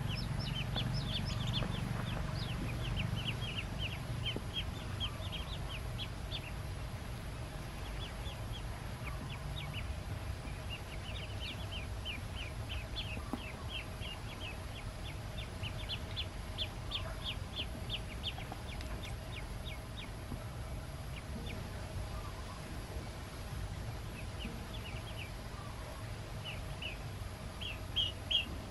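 Newly hatched ducklings peeping: many short, high peeps in quick runs with brief pauses between, over a steady low hum.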